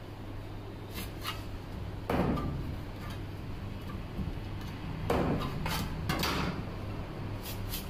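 Steel knife and cleaver scraping along a fish and knocking on a wooden chopping block as the fish is scaled and cut, with several sharp knocks, the loudest about two seconds in and about five seconds in. A steady low hum runs underneath.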